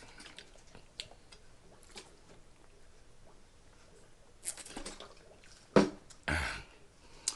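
Quiet chewing and mouth clicks of someone eating chicken stir-fry, with a few louder short sounds around six seconds in.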